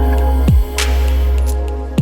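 Ambient electronic background music with a deep sustained bass, a falling bass drop about half a second in and another at the end, and a brief hissing swell about a second in.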